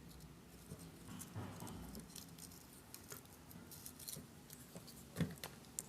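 Faint small clicks and rustles of hands handling a ceiling fan's coil wires while fitting an insulating sleeve over a lead, with one sharper knock about five seconds in.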